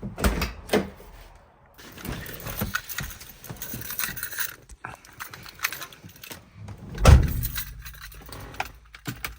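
Keys jangling and a couple of knocks while getting into the car. About seven seconds in, the BMW E30's turbocharged M20B25 straight-six fires up on a cold start with a loud low burst, then settles into a steady low running note.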